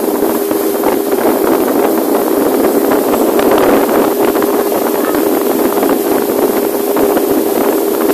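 A motorboat's engine running steadily as the boat cruises along, a constant hum with rushing noise over it.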